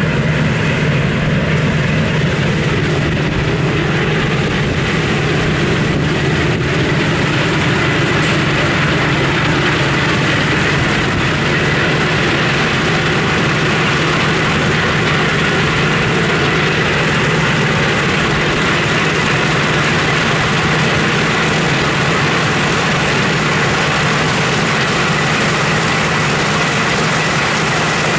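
Claas Lexion 580 combine harvester running steadily while harvesting wheat: a constant heavy engine drone with a steady high whine above it.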